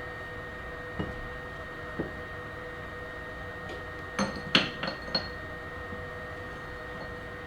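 Metal parts and tools being handled at a workbench: a knock about a second in and another a second later, then a quick cluster of sharp, ringing metallic clinks about four to five seconds in.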